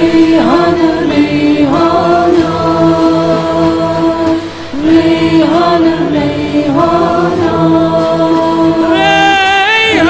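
Vocal music: a voice singing long held notes with ornamented slides at the start of each phrase, over a steady low drone. A higher voice with a wavering vibrato comes in near the end.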